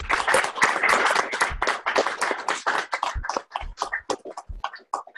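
Hand clapping: close, dense applause that thins out over the last two seconds into a few scattered claps and stops.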